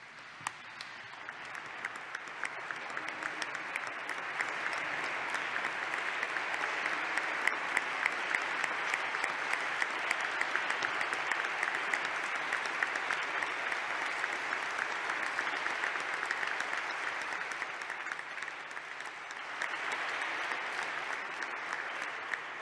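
Audience applause: many people clapping, building over the first few seconds, holding steady, dipping briefly and swelling again near the end, then fading.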